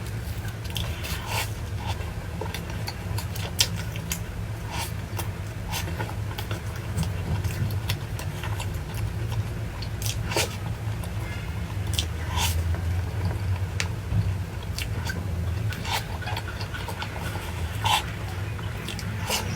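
Eating noises: irregular crunches and clicks of chewing over a steady low hum.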